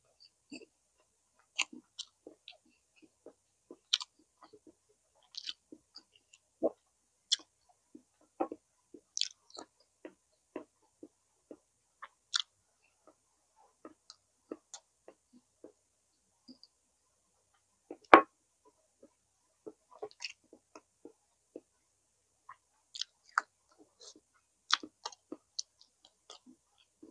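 Close-up eating sounds of a person chewing a meal: irregular soft clicks and short mouth noises. One much louder sharp knock comes about two-thirds of the way through.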